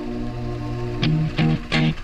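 Background music: a held chord, then a steady rhythmic beat comes in about a second in.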